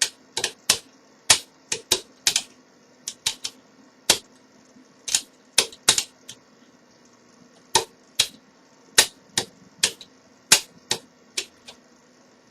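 Sharp, irregular metallic clicks as a five-lever mortice lock is picked by overlifting: the pick and wire tap and lift the levers, which click as they drop. The lock has been pushed into its anti-pick state, the false set the picker works around.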